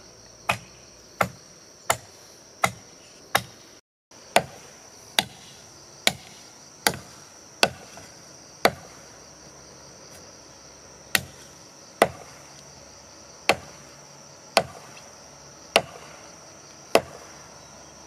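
Wood being chopped with a blade: sharp strikes at a steady pace, about one every 0.7 to 0.9 seconds, with a pause of a couple of seconds in the middle. A steady high-pitched drone runs underneath.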